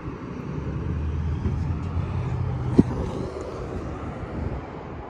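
A vehicle's engine rumbling, swelling about half a second in and easing off after a few seconds, with one sharp click a little under three seconds in.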